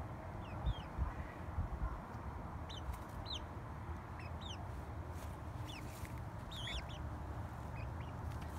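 A hen on a lap, peeping softly: scattered short, high chirps that fall in pitch, over a steady low background rumble.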